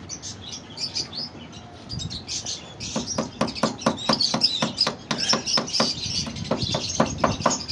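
A small hammer tapping nails into a wooden frame to fasten wire mesh, a quick run of sharp knocks at about four a second starting about three seconds in. Small birds chirp throughout.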